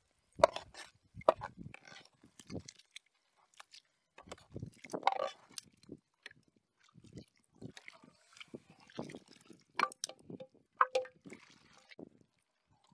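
Metal ladle scraping and knocking against a frying pan and the rim of a large metal cooking pot as a fried onion-and-tomato mixture is scraped into a pot of bean soup and stirred in, with soft splashes. Knocks and clinks come irregularly, and a couple near the end ring briefly.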